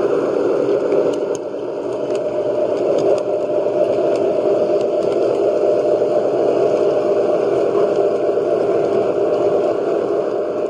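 O scale model EMD F-unit diesel locomotive running along the track: a steady, noisy running sound of motor and wheels, with a few faint clicks.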